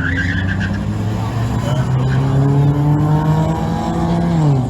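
Race car accelerating hard, with a tire squeal at the very start; the engine's pitch then climbs steadily and drops sharply near the end.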